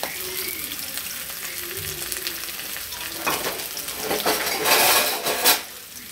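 Sliced onion, cabbage and carrot sizzling in hot oil in a metal kadhai on a high flame, just after being added. There are louder rushes of noise about three seconds in and again around five seconds, and the biggest one stops sharply.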